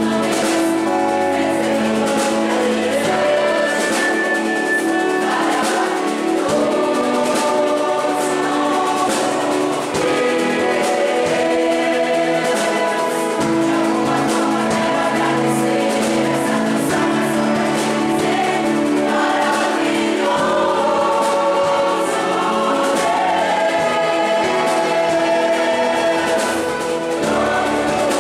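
Mixed choir of men and women singing a hymn, held notes moving smoothly from one to the next without a break.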